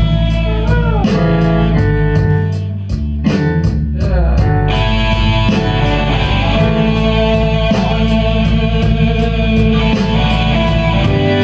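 Blues-rock band playing live: electric guitar lead with bent notes over a steady drum beat and bass.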